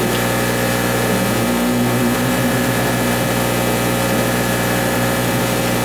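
A steady, droning hum with a hiss over it.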